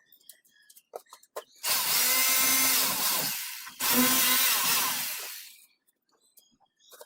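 A power drill runs in two bursts of about two seconds each. Each burst is a high whine that dies away at its end, with light knocks and clicks before and after.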